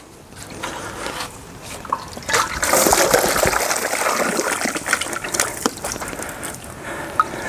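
Rinse water pouring out of the mouth of an upended plastic deionizer tank into a cardboard box, flushing out leftover resin. The pour builds about two seconds in, runs as a steady gush, and tapers toward the end.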